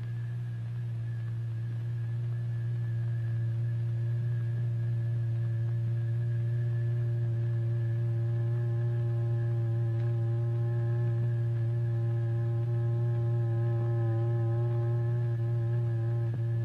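Steady low electronic drive tone with faint higher overtones, holding one pitch: the tone vibrating the membrane in a cymatics experiment.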